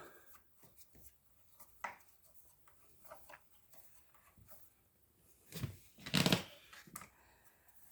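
Faint clicks and scrapes of hand tools and bolts being worked while the scooter's brake caliper bolts are tightened, with a louder short knock or rustle about six seconds in.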